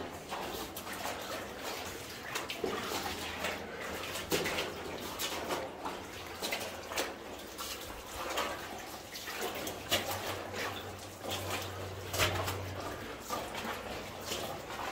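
Footsteps splashing and crunching through shallow water, mud and loose rock on a mine tunnel floor, irregular steps with small splashes and drips.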